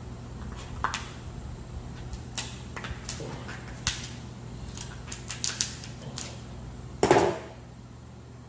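Boiled lobster shell being cut open with a blade and broken apart by hand: a string of sharp clicks and cracks, the loudest a longer crack about seven seconds in, over a faint steady low hum.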